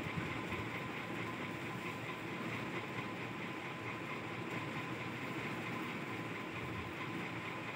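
Steady, machine-like hum and hiss with a faint constant high tone, unchanging throughout.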